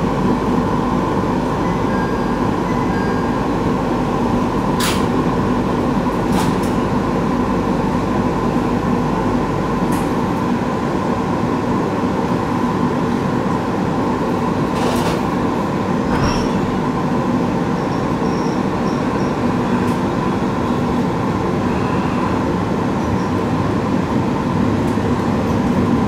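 Running noise heard inside a JR East 701-series electric train car at speed: a steady rumble of wheels on rail with a constant hum, broken by a few sharp clicks from the track scattered along the way.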